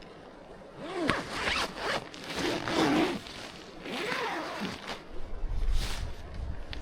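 Zipper being pulled, in about four separate strokes over a few seconds, with a short click near the end.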